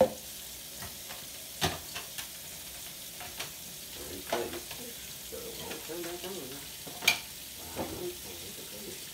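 Tap water running steadily into a stainless steel sink, with occasional knocks and clunks as juicer parts are rinsed under it; the loudest knock comes about seven seconds in.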